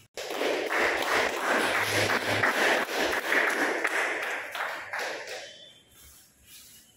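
A small group of people clapping, starting suddenly just after the start and dying away after about five seconds.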